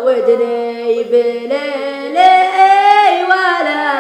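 A boy singing a Gulf Arabic shaylah, several layers of his voice moving together in harmony on long, gliding notes, with no drums.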